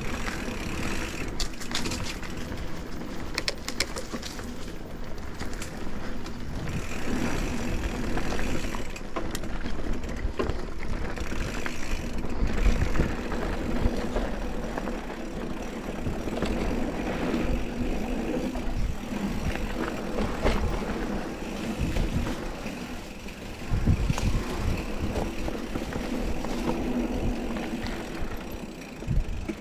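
Mountain bike riding down a dirt trail: a continuous rumble and rattle of tyres and bike over the ground, with a few sharper knocks from bumps.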